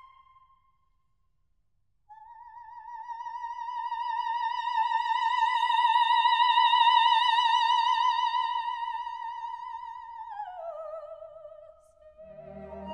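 Soprano voice holding one long high note with vibrato, swelling and then fading, after a brief silence; it slides down to a lower note near the end as the orchestra comes in underneath.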